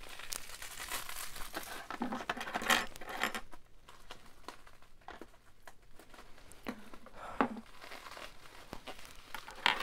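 Crinkling and rustling of wrapping being handled, with many small crackles, busiest in the first three seconds and fainter after.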